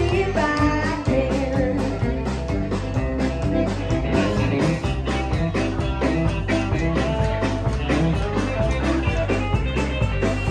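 Live band playing an upbeat rock-and-roll number: electric guitar over electric bass and drums, with a steady bass pulse.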